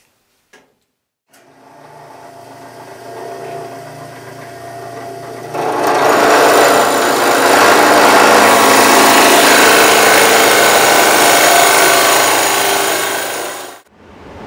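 Benchtop drill press motor starts about a second in and runs, then about four seconds later a 1.5-inch spade bit bores into a wooden 2x6 with a loud, steady cutting noise that cuts off suddenly near the end.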